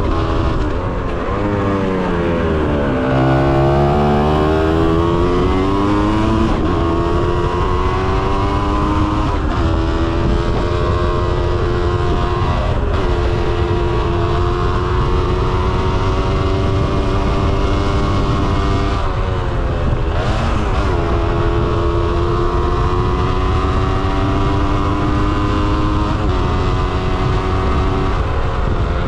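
Kawasaki KX125's two-stroke single-cylinder engine being ridden. The engine pitch drops and climbs again several times as the throttle and gears change, with a steady low rush of wind on the microphone underneath.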